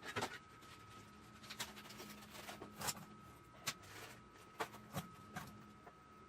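Scattered light clicks and knocks of hand work on a lawn mower's parts, about a dozen, irregularly spaced, over a faint steady hum.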